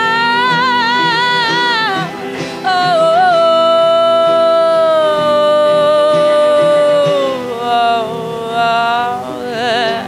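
A high voice sings long drawn-out notes over sustained electric guitar chords, one note held steady for about four seconds before dipping, then shorter notes near the end.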